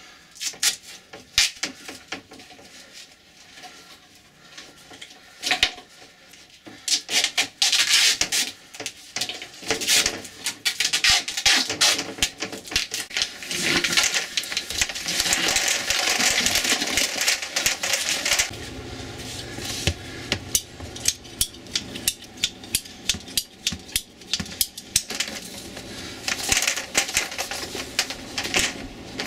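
Handling noise of a black polytube water service pipe and cable being worked through a hole broken in a concrete basement floor: irregular knocks, scraping and rubbing against rubble. A low steady hum joins about two-thirds of the way through.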